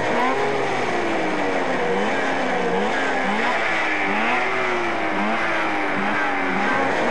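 Several two-stroke race snowmobile engines revving and idling together, their pitches rising and falling in overlapping sweeps.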